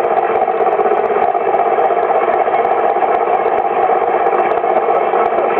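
A steady mechanical drone that runs unchanged at a fairly loud level.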